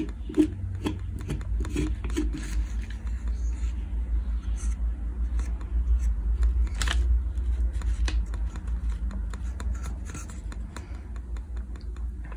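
Fingers rubbing and pressing sawdust into glue-filled cracks in carved wood: scratchy rubbing strokes, about two a second for the first couple of seconds, then irregular scraping with scattered small clicks over a steady low rumble.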